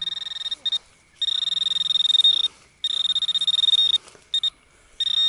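Minelab Equinox 800 metal detector sounding a steady high-pitched target tone. It comes in repeated long beeps of a second or more, with two short blips between them, as the coil passes back and forth over a small target that is read as foil.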